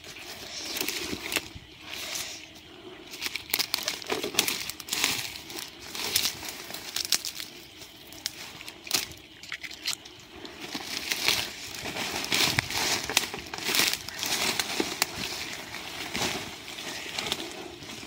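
Footsteps through dry leaf litter and undergrowth, with leaves and fronds rustling and crackling irregularly against the legs and camera.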